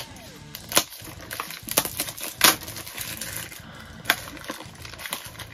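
Small cardboard toy box and its packaging being handled and opened by hand: a handful of sharp crackles and snaps at irregular spacing, the loudest about two and a half seconds in.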